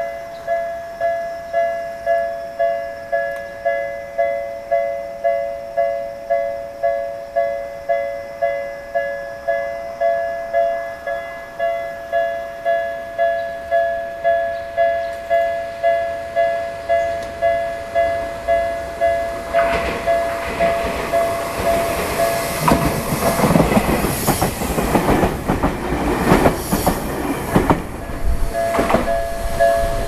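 Japanese level-crossing warning bell sounding its electronic two-tone chime over and over, about one and a half strikes a second. About twenty seconds in, a Tokyu Ikegami Line train passes over the crossing, its wheels rumbling and clattering loudly enough to drown out the bell for several seconds. The bell is heard again near the end.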